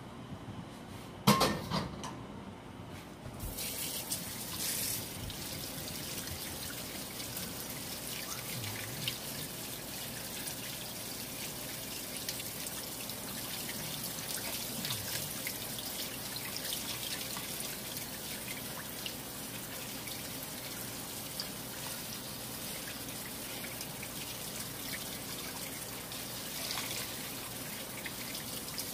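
A sharp knock about a second in, then a kitchen faucet running steadily, its water splashing onto cooked linguine in a colander in the sink as the pasta is rinsed.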